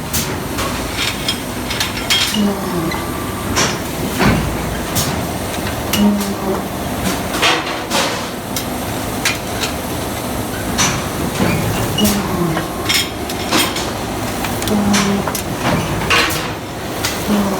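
Induction heating and roll forging line at work: irregular metal clanks and knocks over steady machinery noise, with a few short low hums that drop in pitch.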